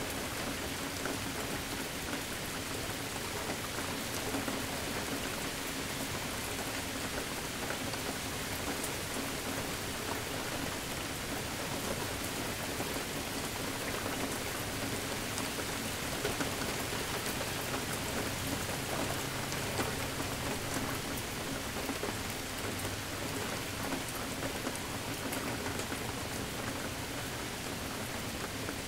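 Steady rain falling, with many individual drops striking a surface.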